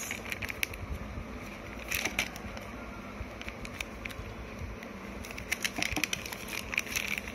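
Clear plastic packaging crinkling and rustling as sunglasses are handled and unwrapped, with scattered sharp crackles that are busiest about two seconds in and again near the end.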